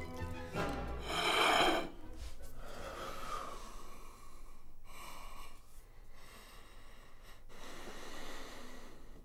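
A man breathing heavily and sighing into his hands, with a loud exhale about a second in and several slower breaths after it. The tail of background music dies away at the start.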